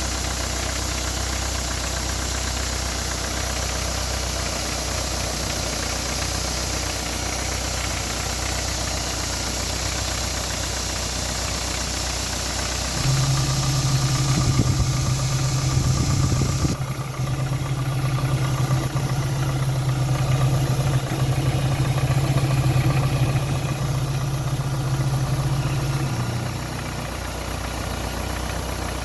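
Ford Zetec Rocam four-cylinder engine running at idle with a repetitive 'tec tec tec' ticking. About halfway through, a louder steady hum joins for several seconds and then drops away.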